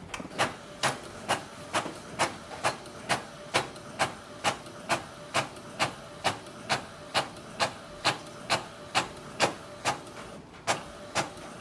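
Epson EcoTank ET-3830 inkjet printer printing a page: the print head shuttles back and forth across the paper with a regular click about twice a second, pausing briefly once near the end.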